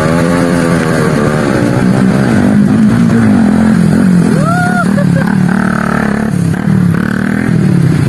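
Motorcycle engine running with the throttle opened and eased repeatedly, its pitch rising and falling.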